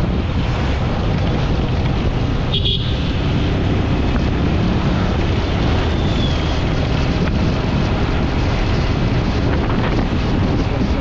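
Wind rushing over the microphone of a motorcycle being ridden along a road, steady, with the engine and tyre noise underneath.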